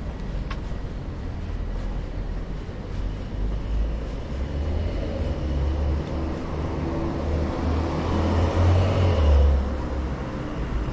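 A car passing by on a street, its noise swelling to a peak about nine seconds in and then falling away, over a steady low rumble of wind on the microphone.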